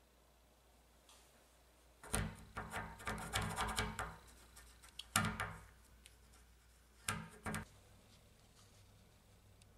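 Rubbing, scraping and clicking of a pencil and fingers working on the clear plastic seal strip at the foot of a glass shower door, in three bursts: a long one of about two seconds, then two short ones.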